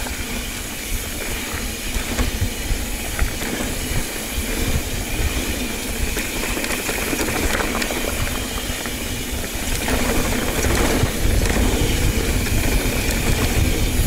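Mountain bike ride noise: wind buffeting the microphone and tyres rolling over a dirt trail, with scattered knocks and rattles from the bike. The rumble grows louder about ten seconds in.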